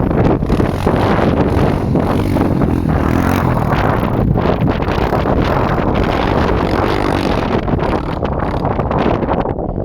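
Yamaha Grizzly 660 ATV's single-cylinder four-stroke engine running through an HMF slip-on exhaust, its pitch rising and falling as the throttle changes, with wind buffeting the microphone.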